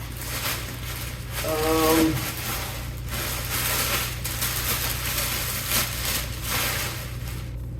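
Continuous rustling and scraping of things being handled and moved, over a steady low electrical hum, with a short pitched squeak or hum about a second and a half in.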